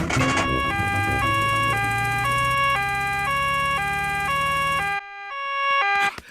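Two-tone emergency siren on the cartoon doctor's car going 'nee-naw', alternating between a high and a low note each held about half a second, over a low engine hum. The hum cuts out about five seconds in while the siren carries on, getting louder, until it stops near the end.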